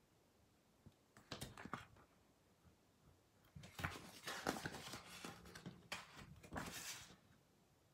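Paper pages of an instruction booklet rustling as they are handled and turned by hand: a short burst about a second in, then a longer, louder stretch of rustling from about three and a half seconds to about seven.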